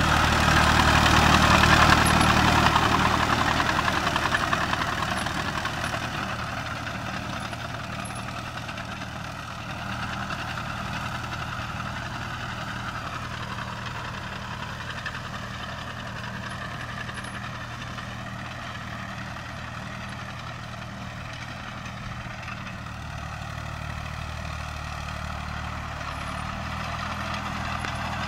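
Landini C5000 crawler tractor's Perkins 3P three-cylinder diesel running steadily under way, loudest about two seconds in as it passes close, then fading as it moves off and growing a little again near the end.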